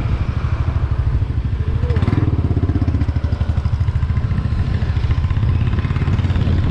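Motorcycle engine running while being ridden through traffic, heard from the rider's seat as a steady pulsing low rumble.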